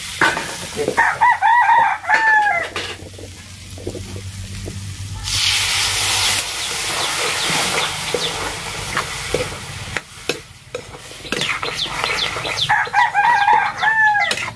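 A rooster crows twice, about a second in and again near the end. Under it, potatoes fry and sizzle in a kadhai over a wood fire as a metal ladle stirs and scrapes them, with the sizzle hissing louder about five seconds in.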